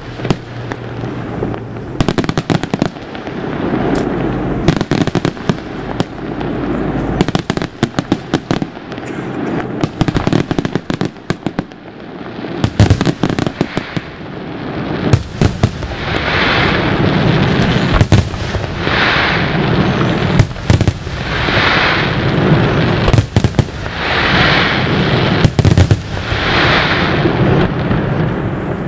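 Aerial fireworks display: a rapid series of sharp bangs from shells being launched and bursting. In the second half a rush of noise swells and fades about every two and a half seconds among the bangs.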